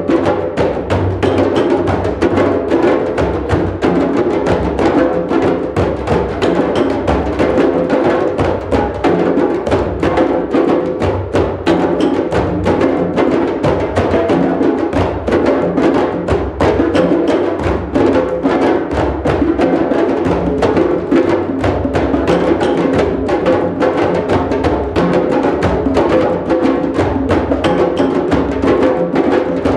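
Drum circle: many drums and percussion instruments played together in a dense, steady rhythm that never pauses.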